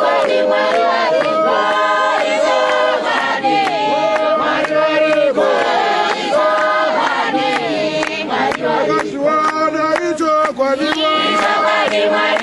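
Church congregation of men and women singing a hymn together unaccompanied, several voices holding and sliding between notes, with frequent sharp claps through the singing.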